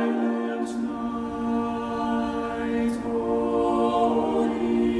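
Choir singing long held chords, changing only a few times.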